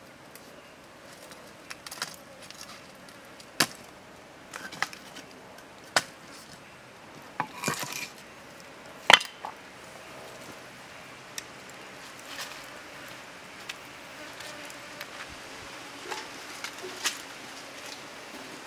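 A scattered series of sharp knocks and clinks, about a dozen, irregularly spaced: split firewood and cooking gear being handled, wood on wood and metal tableware.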